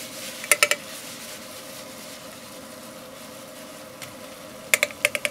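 Chopped peppers sizzling in a stainless steel frying pan over a forge fire, with a steady hum underneath. Quick clusters of metal clinks from the pan and utensil come about half a second in and again near the end.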